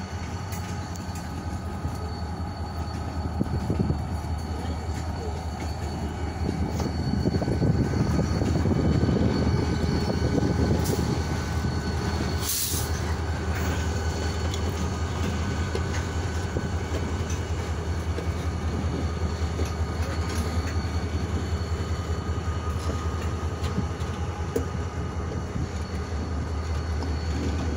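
Freight train rolling slowly past, slowing toward a stop: steady rumble of steel wheels and cars, with a diesel locomotive's engine growing louder as it passes near the middle. A thin steady squeal runs over it, and there is a brief hiss about twelve seconds in.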